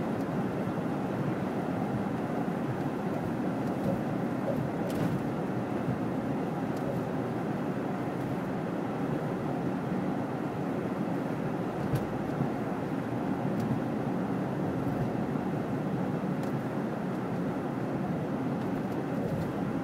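Steady road and engine noise of a car driving on winter roads, an even rushing hum with no change in pace, broken only by an occasional faint click.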